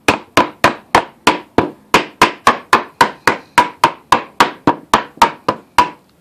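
Rubber mallet striking a clamped panel of glued cedar strips: about twenty quick, even blows at roughly three or four a second. The strips are being tapped down flush against the work surface so the cutting board sands truly level.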